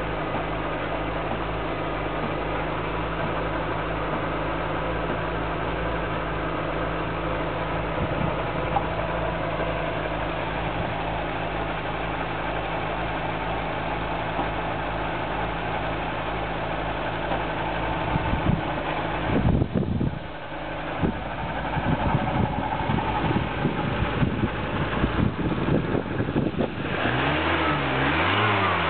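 Volkswagen G60 engine, a supercharged four-cylinder, idling steadily. After about eighteen seconds it turns uneven, dipping briefly near twenty seconds, then revs up and down near the end.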